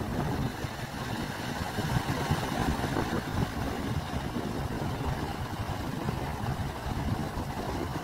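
Small sea waves breaking and washing up over a sandy beach, with wind blowing across the microphone as a constant low rumble.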